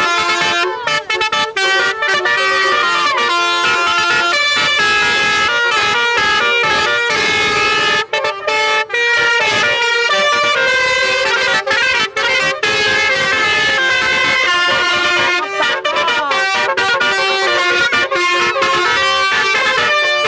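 Multi-tone telolet horn playing a melody: a run of held horn notes that step from pitch to pitch every half second or so, with a few brief breaks.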